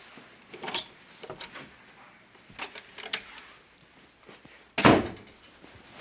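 A few light steps and knocks, then one loud, sharp thump just before the five-second mark.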